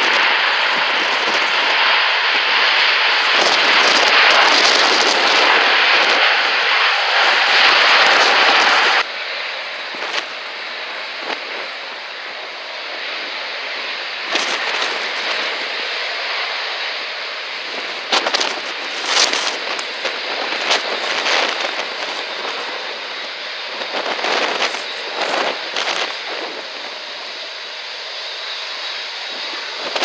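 Airbus A380 jet engines running loud on the runway after landing. The sound cuts sharply to a quieter, steady engine roar about nine seconds in, with irregular gusty bursts of storm wind on the microphone.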